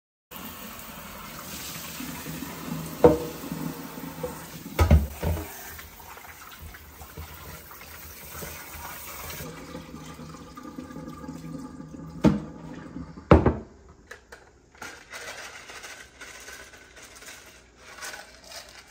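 Kitchen tap running water into a glass bowl of raw goat meat in the sink as the meat is rinsed. Several sharp knocks are heard, with the water lighter in the second half.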